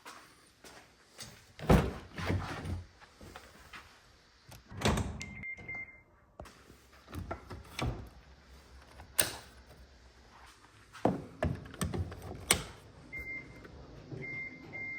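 Car door and interior fittings being handled, a run of thunks and clicks, with a short high electronic warning beep about five seconds in and twice more near the end.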